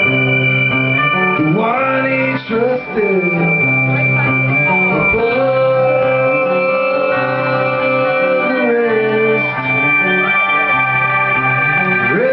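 Rock band playing live, an instrumental break with organ and guitar chords under a lead line that slides up into notes and holds a long one through the middle. A thin steady high tone sits over the whole mix.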